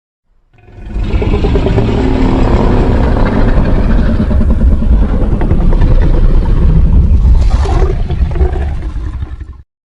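Godzilla sound effect: a loud, deep, rough rumble that swells up within about a second, runs for about nine seconds with a brief brighter hiss near the end, then fades and stops.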